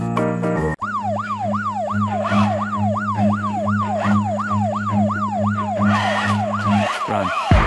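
After a moment of chiming music, a sudden cut to a police siren sound effect in rapid yelp mode, its pitch rising and falling about two and a half times a second over a pulsing low hum.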